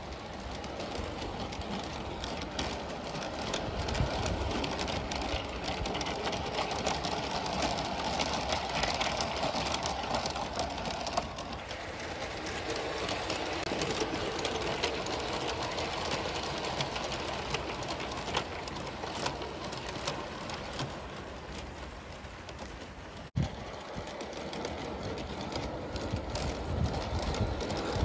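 Bachmann G-scale model train with the black Diesel shunter passing with tank wagons: the hum of its electric motor and the wheels running on the track, with many light clicks as they pass over the rail joints.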